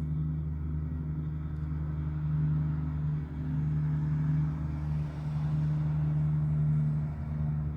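Low, steady droning hum built from several held low tones, swelling and dipping slightly in loudness, of the kind the uploader presents as a strange sound from the night sky.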